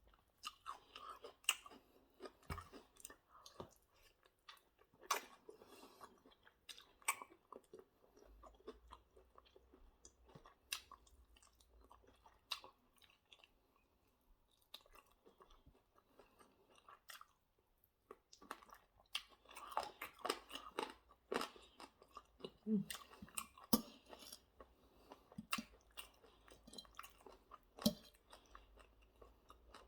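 Close-up eating sounds: chewing and crunching of chicken wings and salad, with irregular sharp crunches and lip-smacking clicks and a quieter lull partway through.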